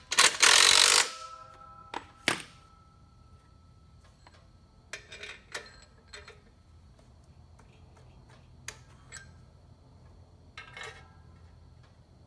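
A loud metal clank that rings on briefly in the first second, then lighter, scattered clinks and taps of steel parts and hand tools while a clutch is fitted to a flywheel.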